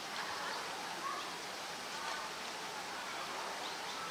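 Steady outdoor background noise with faint, distant voices of a crowd now and then.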